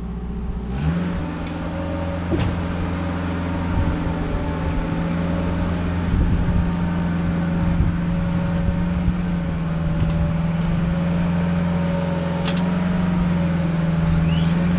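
Boom lift's motor and hydraulic pump running with a steady hum, stepping up in pitch about a second in as the platform controls are worked, with a few faint clicks.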